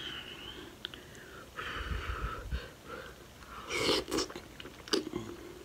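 Close-miked eating sounds: breathy exhalations through the mouth, then a wet bite into a sauce-covered piece of seafood boil about four seconds in, followed by sharp wet mouth clicks.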